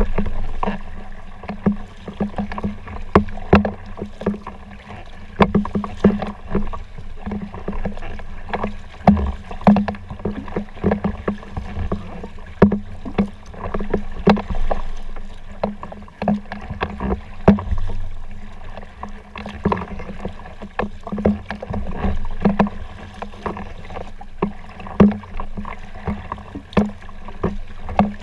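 Folding kayak being paddled on open water: paddle strokes give uneven sharp splashes and knocks, about one or two a second, over a steady low rumble of water and wind against the boat.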